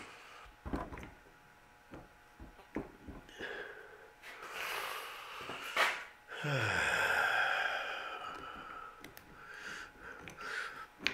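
A man breathing hard and letting out a long, heavy exhale about six seconds in while forcing brake pads and springs into a disc brake caliper by hand. Light clicks and taps of the metal caliper parts come in the first few seconds.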